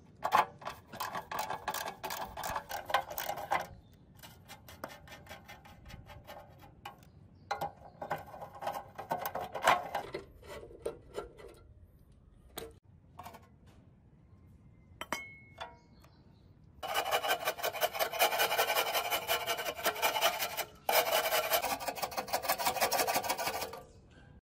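A socket wrench ratchets rusted bolts loose from a steel saw base in two spells of rapid clicking. About two-thirds of the way through comes a steel scraper grating heavy rust scale off the base, in two long strokes.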